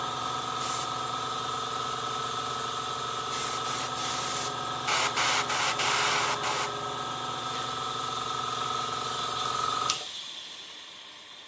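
Small airbrush compressor running with a steady hum while a Neo airbrush gives several short bursts of spray hiss. The motor cuts off suddenly about ten seconds in, with a click, leaving a fading hiss.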